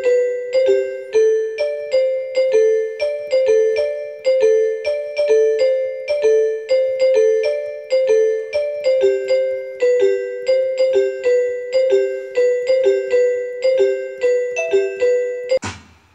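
Background music: a keyboard tune of short, repeating notes stepping back and forth in a simple pattern, which stops shortly before the end.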